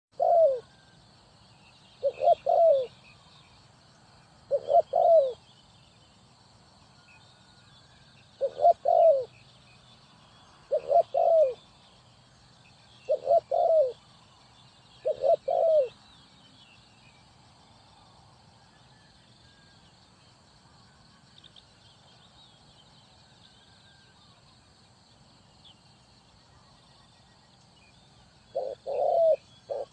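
Spotted dove cooing in short phrases of two or three notes, repeated every two seconds or so for about sixteen seconds, then a pause, and calling again near the end. Faint chirps of small birds sound behind it.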